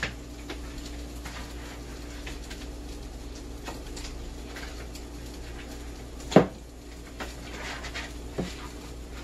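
Scattered light clicks and knocks of kitchenware, with one sharp knock about six seconds in, over a steady low hum.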